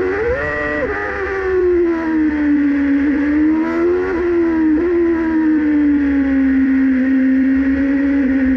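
Formula 1 car engine heard onboard, running at low road speed. A quick rev blip near the start, then the note climbs and drops sharply about four seconds in, and settles into a steady, slowly falling note.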